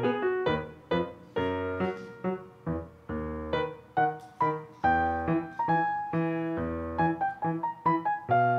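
Background piano music: notes and chords struck one after another, each fading away before the next.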